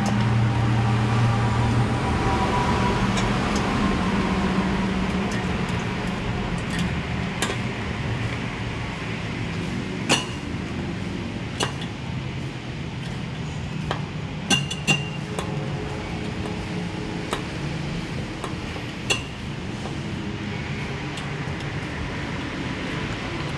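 Metal tools and fasteners clinking now and then during work on a scooter, a handful of sharp clinks spread through the middle and later part, over a steady low hum.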